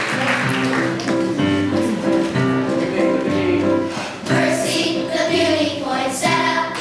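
Elementary-school children's chorus singing together.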